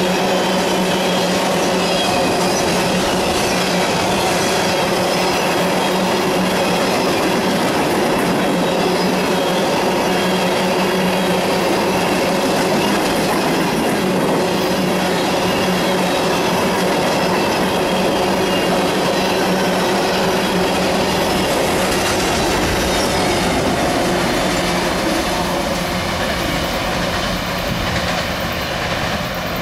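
CSX freight train of tank cars rolling past close by: a steady loud rush of steel wheels on rail, with high steady wheel squeal over it. The sound eases slightly near the end.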